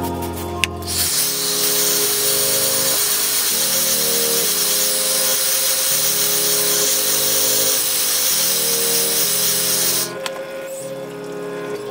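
Handheld electric hair dryer blowing steadily for about nine seconds, drying fresh spray paint on a fibreglass rod blank. It starts about a second in and cuts off near the end.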